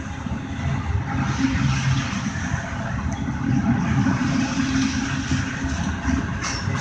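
Double-stack intermodal freight train rolling past: a steady low rumble of steel wheels on the rails.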